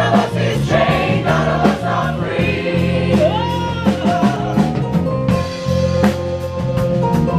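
Large gospel choir singing in full voice over a band, with drum hits keeping a steady beat and a strong bass line underneath.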